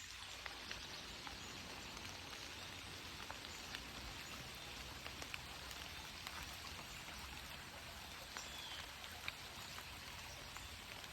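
Rain falling steadily: a soft, even hiss scattered with small sharp ticks of individual drops landing.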